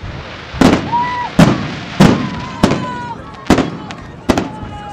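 Aerial firework shells bursting in the sky: about seven loud bangs at irregular intervals, each fading away, with faint whistle-like tones between some of them.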